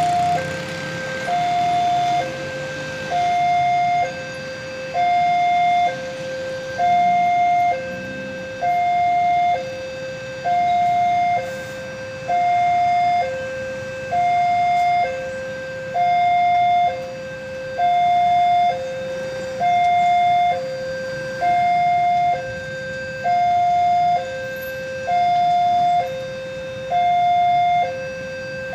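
Railway level crossing warning alarm sounding its two-tone electronic signal, a high tone and a lower tone alternating about once a second each in a steady, unbroken cycle. It is the warning that a train is approaching the crossing.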